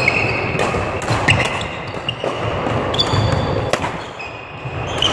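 Badminton rally: sharp cracks of rackets striking the shuttlecock, several times, mixed with shoes squeaking and thudding footfalls on the court floor, echoing in a large sports hall.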